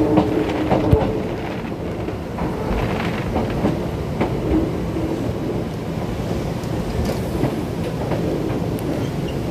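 Keisei 3500 series commuter train running, heard from inside the car: a steady rumble with the wheels clicking over rail joints now and then.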